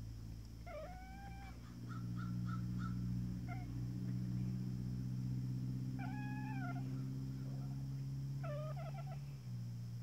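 Domestic cat chirping and chattering, the 'bird calls' cats make at birds they are watching: four short trilling calls, the first running into a quick stutter of five clicks. A steady low hum sits underneath.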